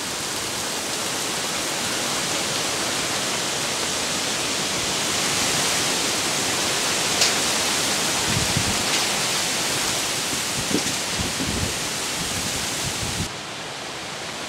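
Cyclone wind and heavy rain in a steady, loud hiss, with a few low thumps of gusts on the microphone in the middle. About a second before the end it drops quieter and duller.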